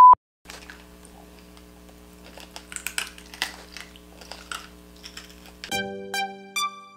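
A loud steady bleep tone cuts off at the very start. Then comes quiet room sound with a faint steady hum and scattered light clicks and rustles of things being handled at a table. Upbeat electronic music with plucked, piano-like notes starts near the end.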